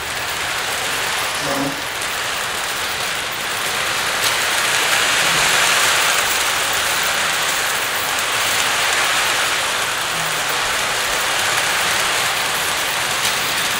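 Lionel Corporation Tinplate O gauge train running around a three-rail track loop: a steady rolling whir and hiss of wheels and motor. It grows a little louder around the middle, as the train passes nearest.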